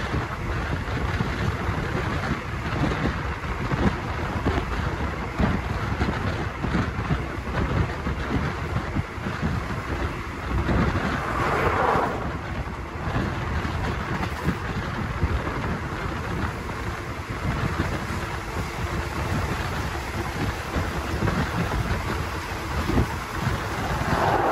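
Ride noise inside a moving passenger train: a steady rush of wind with the wheels knocking over the rails. The rush swells briefly about halfway through and again at the end.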